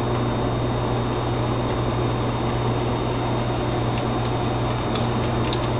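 Batter-dipped shrimp frying in a deep fryer's hot oil: a steady, even sizzling hiss with a low hum beneath it.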